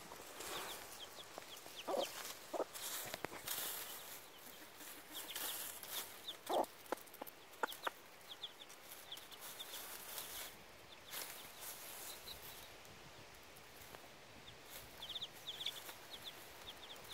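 A broody hen clucking softly a few times while her newly hatched chicks peep in short high clusters, with scattered rustling of dry leaf litter.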